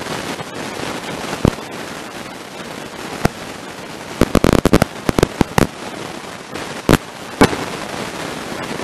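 Fireworks and firecrackers going off: scattered sharp bangs, with a quick run of cracks about four to five seconds in and two more near the end, over a steady hiss.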